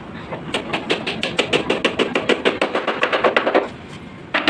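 A hammer tapping quickly and lightly on a wooden wardrobe frame, about seven sharp knocks a second for some three seconds, then stopping, with a few more knocks right at the end.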